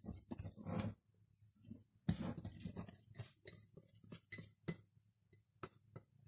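A hand working wet, sticky bread dough in a glass bowl: irregular squelching and tacky pulling, with a few sharper clicks near the end.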